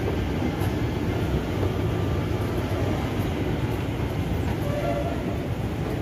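Shopping-mall ambience: a steady low rumble with no clear rhythm, and a few faint short tones about five seconds in.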